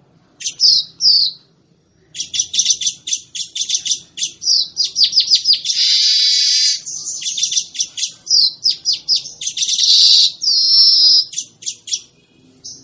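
Weaver bird (manyar) singing: two short high notes, then a long run of rapid, high chattering notes broken by two longer buzzy notes.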